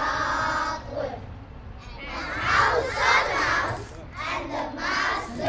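A group of young children reciting a poem together in unison, phrase by phrase with short pauses between lines.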